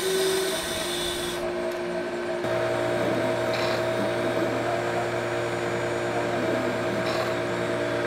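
Wood lathe running with a steady motor hum while turning an epoxy resin blank. For about the first second and a half a chisel cuts into the spinning resin with a hissing scrape, then the hum goes on alone.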